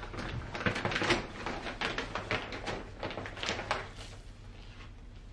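Plastic bag of houseplant potting mix rustling and crinkling as it is picked up and handled. It is a dense run of crackles and scrapes that dies down about four seconds in.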